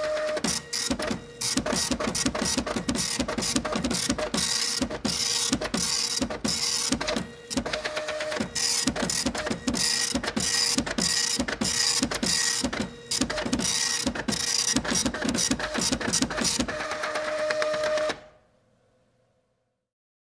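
Computer printer printing, a rapid mechanical clatter over a steady motor whine that runs for about eighteen seconds, then winds down and stops.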